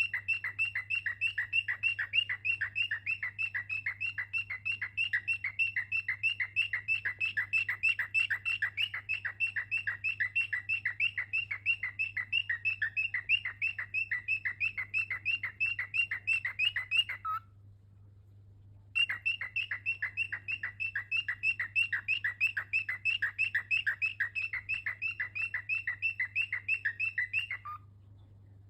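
Cockatiel chirping in a fast, even run of high chirps, about five a second. The run breaks off for a second or two about two-thirds of the way through, then resumes and stops shortly before the end. A faint steady low hum sits underneath.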